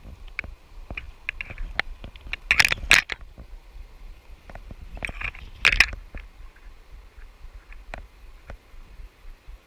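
Irregular light clicking of metal fishing pincers bouncing against the GoPro's plastic case, with two brief louder scrapes, about two-and-a-half and five-and-a-half seconds in.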